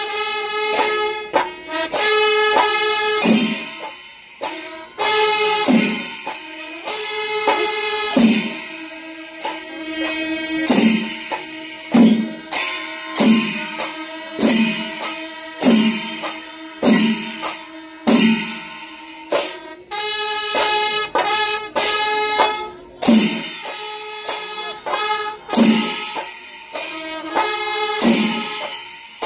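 Kerala temple melam: drums and hand cymbals beating a steady rhythm, about one stroke a second, while a wind instrument plays a melody of held notes over them.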